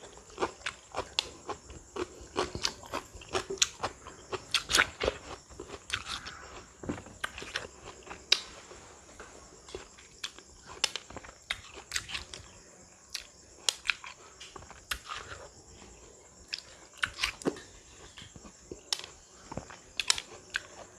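Close-miked chewing and crunching of crisp raw fruit: many sharp, irregular crunches, several a second, some louder bites among softer chewing.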